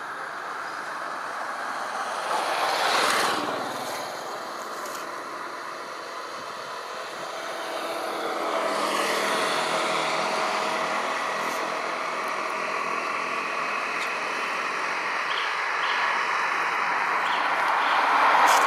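Road traffic going by: vehicle noise swells and fades, with one vehicle passing about three seconds in, a longer engine hum through the middle, and another pass near the end.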